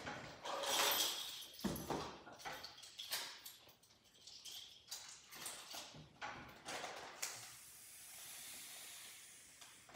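Cardboard box and plastic packaging being handled: irregular rustling and scraping with a few light knocks, loudest about a second in. A steady hiss runs through the last couple of seconds.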